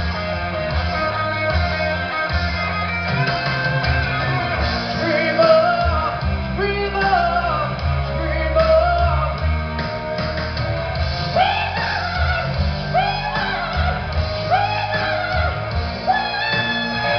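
Rock song with a singing voice and guitar over a continuous band accompaniment.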